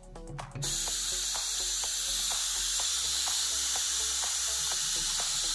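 Homemade ion thrusters, fed high voltage by arc-lighter modules and four-stage voltage multipliers, hissing steadily as they discharge, with a faint regular ticking about four times a second underneath. The hiss comes in about half a second in after a brief dip.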